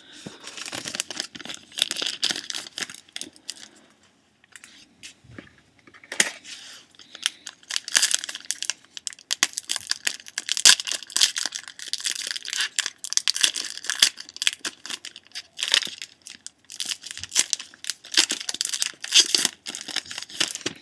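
A foil hockey card pack being torn open and its wrapper crinkled, a dense run of crackles and rustles that eases off for a couple of seconds about four seconds in.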